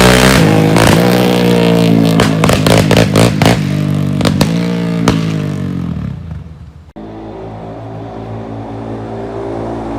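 Suzuki LTZ400 quad's single-cylinder engine coming off a rev, its pitch falling, with a string of exhaust pops and crackles on the overrun in the first half. It fades away, and after an abrupt cut the engine is heard running steadily and slowly getting louder.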